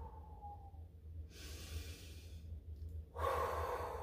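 A woman's slow deep breathing for a calming exercise, in through the nose and out through the mouth: an exhale trails off, a hissing inhale comes about a second and a half in, and another long exhale begins near the end.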